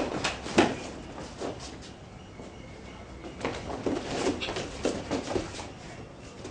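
Two people grappling on their feet in jiu-jitsu gis: bare feet stepping and shuffling on rubber floor mats, with irregular sharp knocks. The loudest knocks come right at the start and about half a second in, and a busier run of scuffles comes about halfway through.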